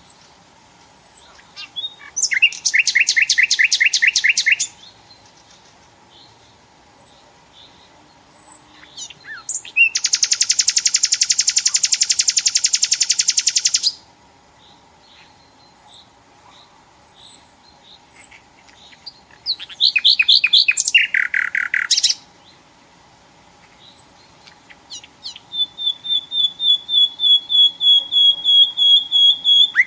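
Nightingale singing in separate loud phrases: a rapid run of repeated notes, a long fast buzzing trill, a falling run of notes, then a series of repeated whistles that grows louder near the end. Faint short high chirps fall between the phrases over a faint steady hum.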